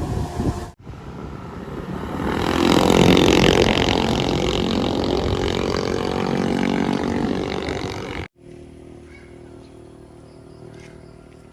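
A motor vehicle's engine running close by, getting louder over about two seconds and then holding steady. It cuts off abruptly and gives way to quieter, steady background sound.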